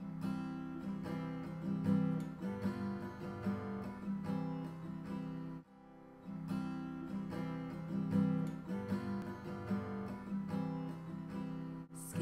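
Acoustic guitar strumming chords in a steady rhythm, with a short break a little before halfway before the strumming picks up again.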